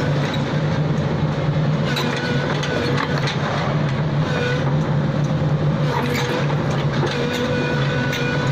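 Excavator engine running steadily under work, with a high whine that comes and goes every second or two and a few clicks.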